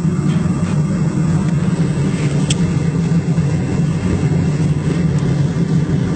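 Front Step Forge propane gas forge burning with its burners lit, a loud, steady, low rumble of the burner flames.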